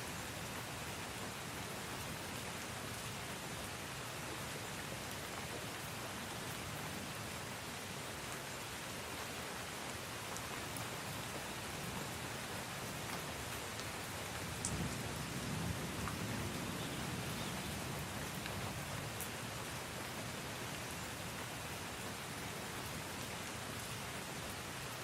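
Steady rain falling, an even hiss with a few individual drops ticking close by. Around the middle a low rumble of distant thunder swells for a few seconds, then fades back under the rain.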